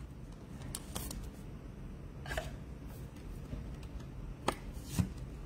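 Light plastic rustling and a few brief clicks and scrapes as a trading card in a soft penny sleeve is handled and slid into a rigid plastic toploader; the two sharpest ticks come near the end.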